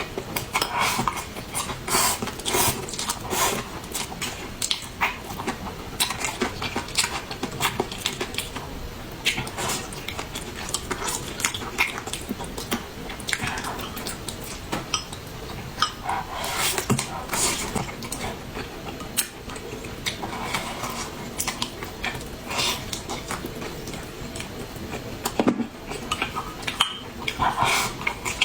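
Cutlery clinking against bowls and plates during a meal, as many quick, light clicks and taps.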